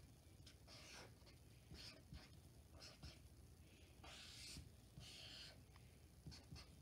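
Faint strokes of a felt-tip marker drawing on sketchbook paper. It is a series of short scratchy strokes, with two longer ones a little past the middle.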